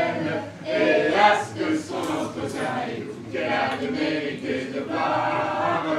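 Choir singing: sustained, wavering voices in phrases of about a second each.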